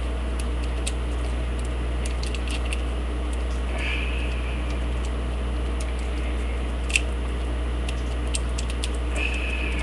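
Small scattered metal clicks and scrapes of a homemade pick and tension wrench working inside a lock, with one sharper click about seven seconds in, over a steady low hum.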